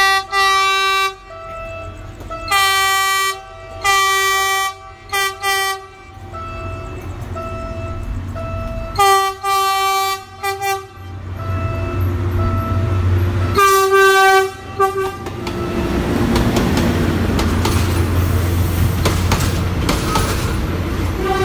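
Diesel-hydraulic locomotive DHL 9002 sounding its horn in a series of blasts, short and longer, over the first fifteen seconds as it approaches a level crossing. The locomotive and coaches then pass close by with a steady rumble of engine and wheels on the rails.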